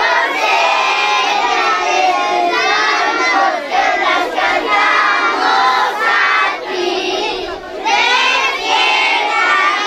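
A crowd of voices shouting and cheering all at once, with a short lull about three-quarters of the way through.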